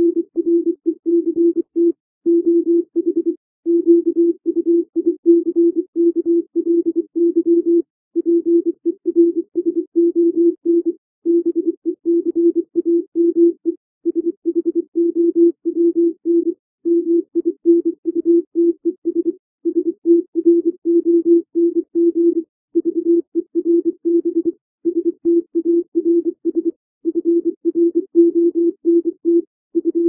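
Computer-generated Morse code (CW) tone at about 24 words per minute: a single low beep keyed in rapid dots and dashes, with short gaps between words. It spells out plain English words such as "correct", "quickly", "person", "became", "minutes" and "front".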